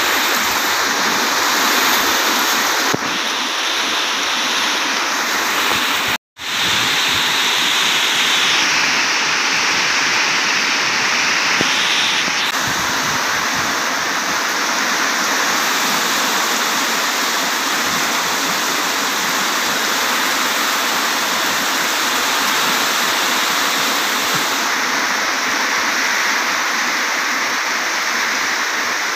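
Very heavy storm rain pouring down, a steady dense hiss. The sound cuts out for a moment about six seconds in.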